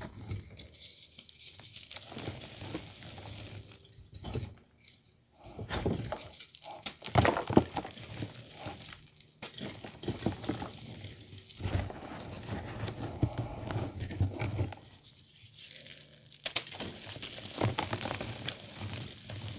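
Hands crushing and crumbling reformed gym chalk into loose powder: irregular soft crunches and crackles with powder pattering down, the loudest crunches about seven to eight seconds in.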